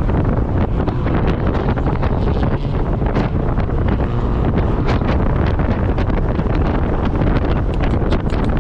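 Wind buffeting the microphone in the open-top cockpit of a 2019 Mazda Miata MX-5 at track speed, with the car's engine and road noise running underneath.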